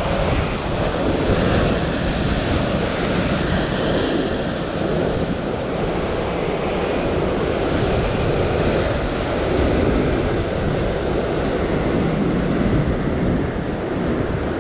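Rough surf breaking and washing over rock ledges, a steady rushing noise, with wind buffeting the microphone.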